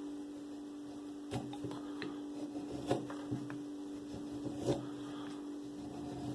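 Carving tool cutting into wood: short, irregular slicing cuts, about half a dozen, the strongest around three and nearly five seconds in, over a steady low hum.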